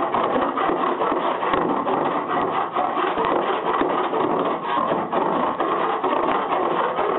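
Hand file rasping back and forth over lead body solder on a car body panel, in a steady run of rapid strokes.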